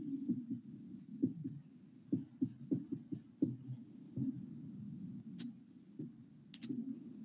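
Marker pen writing on a whiteboard: a run of short, irregular strokes, with two sharper clicks near the end.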